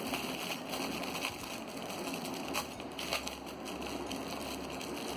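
Faint clicks and crinkles of small plastic packaging being opened by hand, over a steady background hiss.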